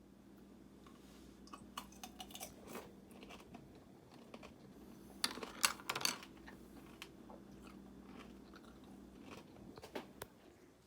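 Faint crunching and scattered light clicks over a steady low hum, with a few sharper clicks about halfway through.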